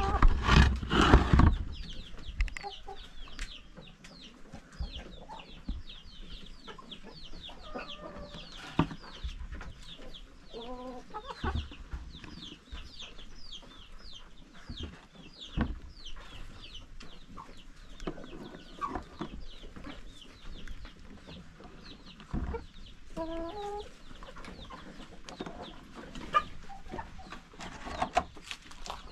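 Chickens in a coop: hens clucking now and then over constant quick, high chirping. A loud clatter fills the first second or so, and a few sharp knocks follow later.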